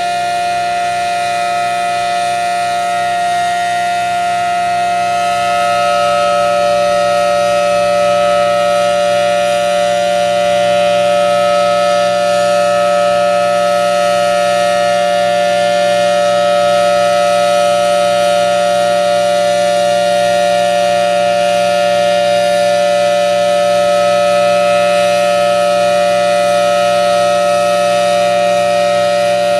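Federal Signal Thunderbolt 1000T outdoor warning siren sounding a steady two-tone chord during its monthly test. The pitch stays level, and the siren grows a little louder about six seconds in.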